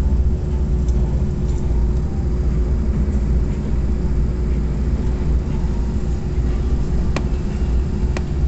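Passenger train running through a long rail tunnel, heard from inside the coach: a steady low rumble with a faint steady hum. Two sharp clicks come near the end.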